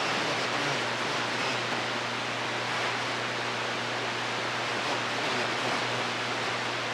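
CB radio receiver hiss: steady static from the speaker with the squelch open and no station transmitting, with a low steady hum under it.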